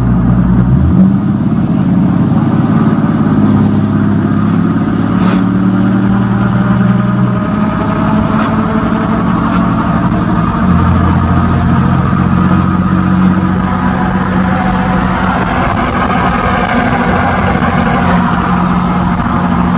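Ram 2500's 6.7 Cummins turbo-diesel inline-six running while the truck drives at road speed, heard from the cab with the windows down, along with road and wind noise. Its steady drone shifts to a new pitch a few times.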